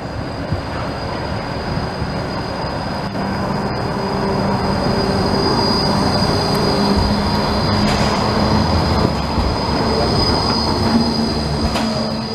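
A green low-floor BVB tram passes close by on street rails. Its wheels run on the track with a steady high-pitched squeal and a low hum, getting louder as it nears and easing off near the end.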